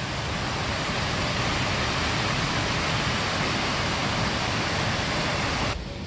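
Waterfall rushing steadily: Minneopa Falls pouring over a rock ledge, an even hiss of falling water.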